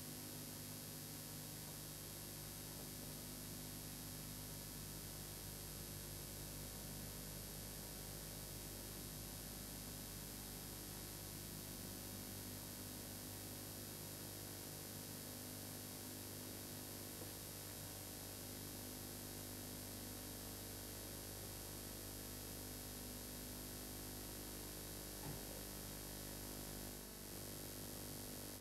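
Steady hiss with a low electrical hum underneath, the background noise of the recording, with one faint click near the end.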